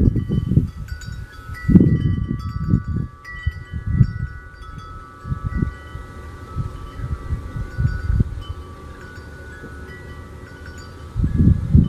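Wind chimes ringing, with clear overlapping tones struck at irregular moments. Under them is an irregular low rumbling that is louder than the chimes, strongest in the first few seconds and again near the end, and calmer from about six to eleven seconds.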